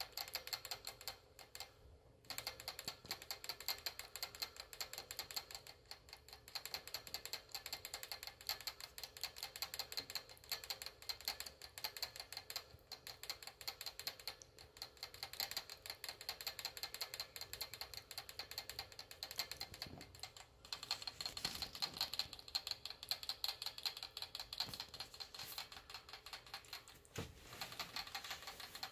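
Pet rat lapping at the metal spout of a water bottle, making a fast, even run of small clicks that stops briefly now and then.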